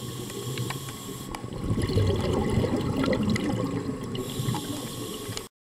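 Muffled underwater rush of water and bubbles heard through a camera housing, most likely a diver's exhaled scuba bubbles. It swells about two seconds in, eases near the end and cuts off suddenly, with faint scattered clicks throughout.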